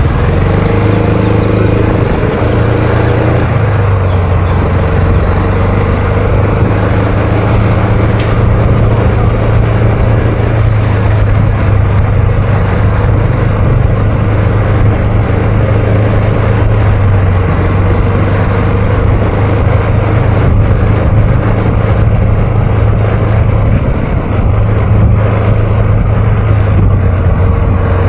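Yamaha X-Max 250 scooter's single-cylinder four-stroke engine running at low, fairly steady revs while ridden slowly, heard loud and close from on board, with small rises and falls in pitch as the throttle changes.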